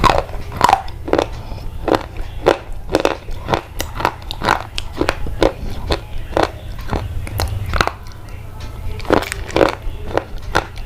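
A steady run of short, crisp crunching sounds, roughly two a second, over a constant low hum.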